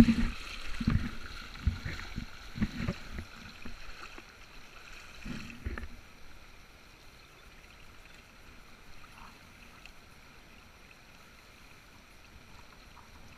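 Water sloshing around a wader's legs with irregular low knocks for about six seconds, then only the faint steady rush of the shallow river.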